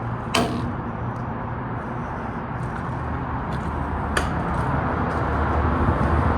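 Steady rumble of distant highway traffic, growing a little louder toward the end, with two sharp knocks, one about half a second in and one about four seconds in.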